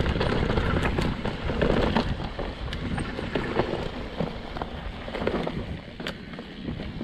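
Mountain bike riding downhill on a dirt trail: a steady rush of tyre and wind noise, with frequent sharp clacks and rattles as the bike goes over bumps.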